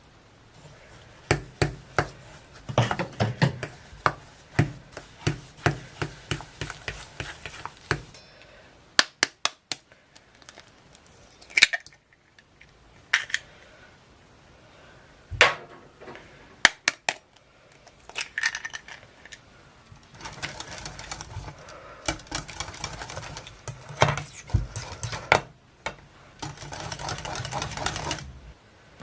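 Kitchen utensils and bowls clinking, tapping and knocking during baking prep. There are two long stretches of busy handling, and a few separate sharp clicks between them.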